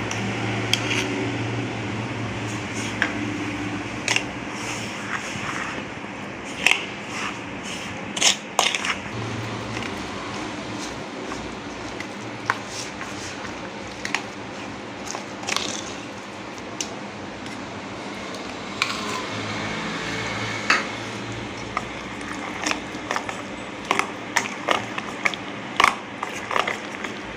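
A spoon stirring semolina and sour curd together in a bowl into a thick batter, with irregular clicks and scrapes of the spoon against the bowl. A steady low hum sits underneath.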